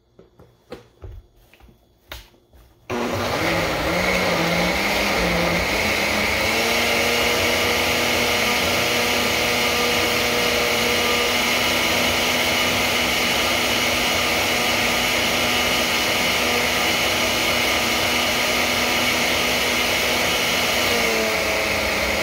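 Countertop blender switched on about three seconds in and running steadily with a whining motor, blending a cheesecake batter of cream cheese, eggs and milk; near the end its pitch begins to fall as it is switched off. A few light knocks come before it starts.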